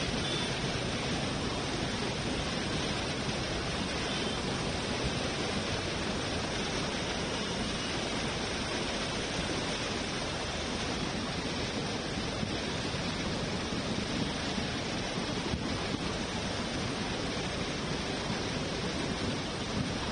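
River in flash flood: muddy floodwater rushing in a steady, unbroken torrent.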